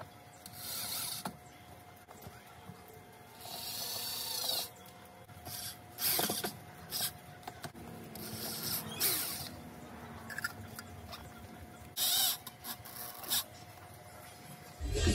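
Power drill driving the centre-console screws of a Honda Prelude in several short bursts, the motor's whine rising and falling, with clicks and knocks from handling between the bursts.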